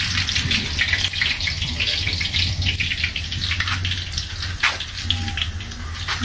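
Slices of sugar-water-dipped bammy frying in hot oil in a frying pan: steady sizzling made of many small crackles, with one louder crack about five seconds in.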